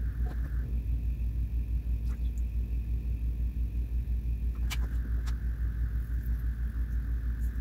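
Steady low machine rumble with an even pulse, about six a second, under a faint high whine that steps up in pitch about a second in and drops back near five seconds; a few light clicks.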